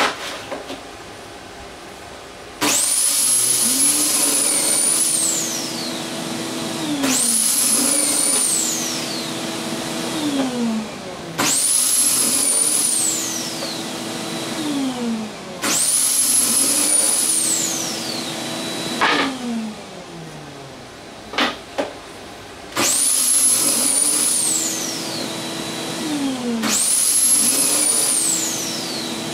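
Electric saw started six times, each a few seconds apart. Each time its motor whines up to speed with a rushing noise, runs through a cut, then winds down quickly in pitch. There are a few wooden knocks between the cuts as boards are handled.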